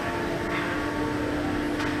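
Steady mechanical hum of workshop machinery, several even tones over a low rumble, with two faint taps about half a second and near two seconds in.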